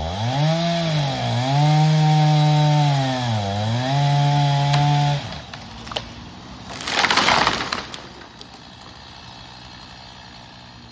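Chainsaw running at full throttle in the felling cut, dipping in pitch twice, then cutting off suddenly about five seconds in. About two seconds later there is a loud crash as the tree comes down.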